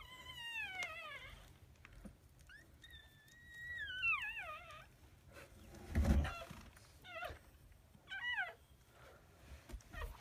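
Newborn toy poodle puppies crying: about five high, wavering squeals that slide down in pitch, the longest held for about two seconds around four seconds in. A low bump about six seconds in.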